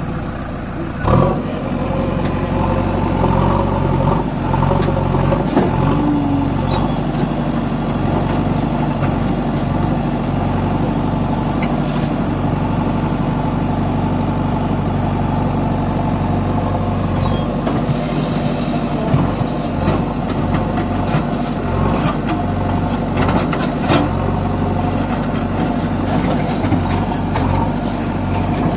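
JCB backhoe loader's diesel engine running steadily under work, with a few sharp knocks along the way.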